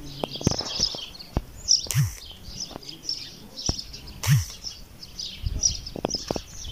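Small birds chirping and twittering continuously, with scattered footsteps on dirt and two dull thumps, about two and four seconds in.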